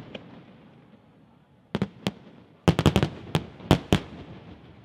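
Aerial fireworks shells bursting: two sharp bangs about two seconds in, then a rapid volley of about eight bangs over the next second or so, each trailing off briefly.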